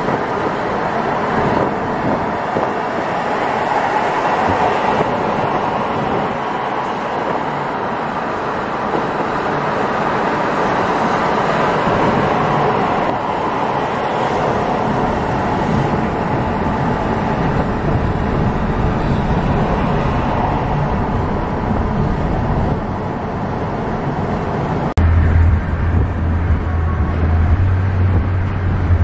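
Road noise from inside a car driving on a highway: steady tyre and engine noise. About four seconds before the end a deep low rumble suddenly joins in.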